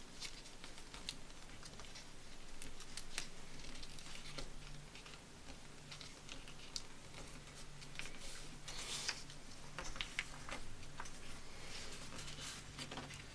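A sheet of paper being folded and creased by hand: scattered soft crinkles, clicks and rustles, a little louder about two-thirds of the way through.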